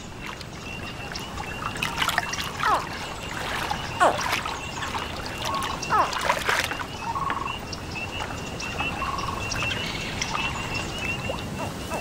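Water trickling and dribbling as an American alligator moves through duckweed-covered swamp water. A few short, falling chirps, typical of alligator hatchlings calling, sound over a steady, pulsing high tone.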